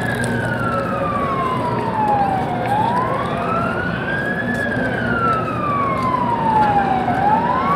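A siren wailing in slow sweeps. Its pitch glides down for nearly three seconds and up for about two, repeating, and starts to climb again near the end.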